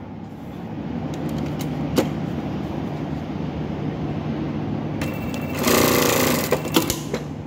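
Industrial single-needle lockstitch sewing machine running and stitching through cloth, with a steady motor hum. There are a few sharp clicks between one and two seconds in, and the machine grows louder for about a second near the end.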